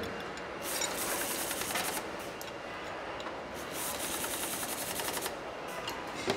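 Car-factory assembly-line noise: steady machinery din with bursts of rapid rattling and hiss, a short one about a second in and a longer one past the middle.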